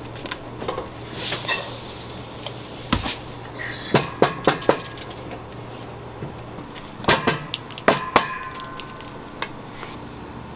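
Dishes and kitchen utensils being handled: scattered knocks and clinks in a few quick clusters, some ringing briefly, over a low steady hum.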